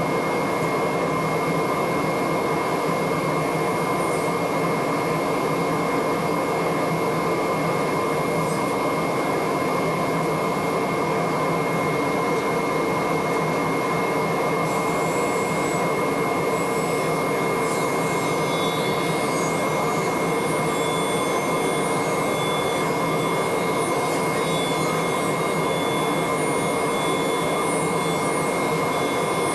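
A machine running steadily, with a constant high whine over its noise.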